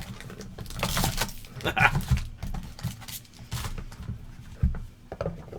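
Rustling, crinkling and light knocks of trading-card packaging being handled and opened, with a short hissing rustle about a second in.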